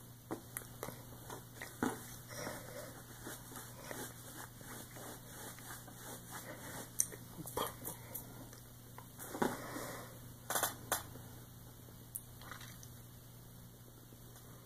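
Hands moving in sign language: scattered light taps, slaps and clothing rustles, with a couple of sharper claps about ten seconds in, over a steady low electrical hum.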